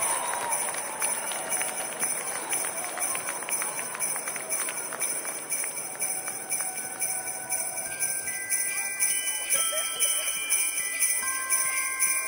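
Sleigh bells jingling in a fast, steady rhythm. From about two-thirds of the way through, a few held ringing tones join in.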